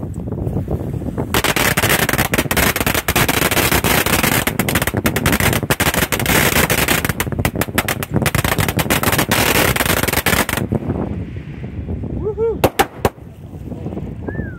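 A long string of firecrackers hung from a pole over the water, crackling in a loud, rapid, unbroken volley. It starts about a second and a half in and runs for about nine seconds before stopping.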